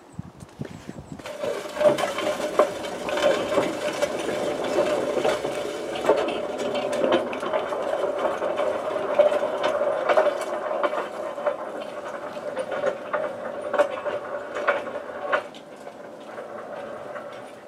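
Hand-pushed, loaded wood-chip wagon on a narrow-gauge field railway rolling along the rails: its flanged metal wheels give a steady hum with frequent irregular clicks and knocks. The rolling starts about a second in and dies away near the end.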